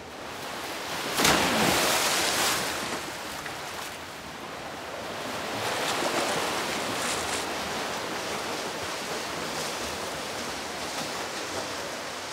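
A swimmer diving into a pool, with a loud splash about a second in, followed by the steady splashing of front-crawl strokes.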